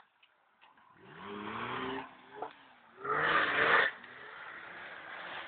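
Off-road 4x4's engine revving under load in two pushes, about a second in and about three seconds in, the second one louder, then running lower.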